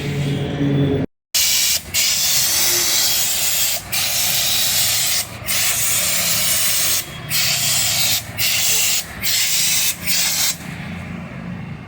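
High-pressure water jet hissing as it sprays down a Cat backhoe loader in a wash, broken by short pauses every second or two, over a steady low motor hum. The sound cuts out completely for a moment about a second in, and the spray grows softer near the end.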